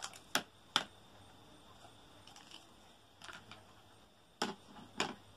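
Hard plastic toy-kitchen pieces clicking and knocking as they are handled, with small plastic pots set down on a plastic toy stove. There are three sharp clicks in the first second, a few lighter ones about three seconds in, and two louder knocks between four and five seconds in.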